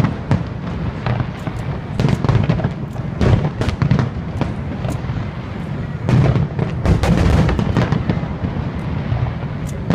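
Aerial fireworks shells bursting in a dense barrage: rapid sharp cracks and booms over a continuous low rumble, heaviest about six seconds in.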